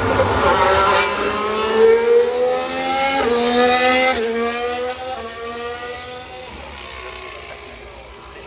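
A 2023 Formula 1 car's 1.6-litre turbocharged V6 hybrid engine accelerating past. The pitch climbs and drops back at several upshifts about a second apart, then fades as the car pulls away.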